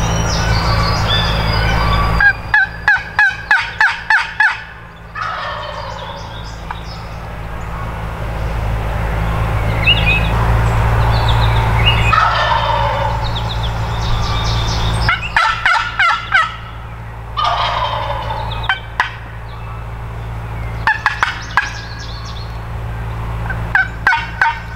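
A wild turkey gobbler gobbling loudly about five times. Each gobble is a quick rattling run of notes. Songbirds chirp faintly in the background.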